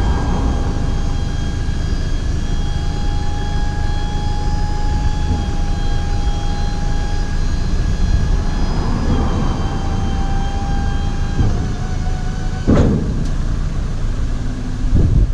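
Ford Transit tipper's electric-hydraulic tipping pump whining steadily while it raises the tipper body. Its pitch shifts slightly a few times before it stops with a knock near the end, the body fully up.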